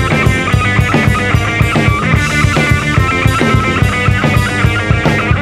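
Rock band playing live: drum kit with steady kick and cymbals, electric bass, and a Telecaster electric guitar playing a quick run of short repeating notes.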